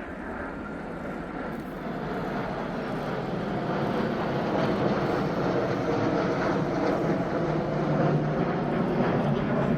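Jet aircraft of a military formation flying past, the engine noise growing steadily louder as they approach.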